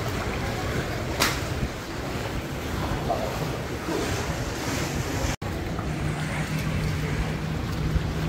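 Wind blowing across the microphone over choppy, wave-tossed floodwater. The sound breaks off for an instant about five seconds in, and after that a steady low hum runs under the wind and water.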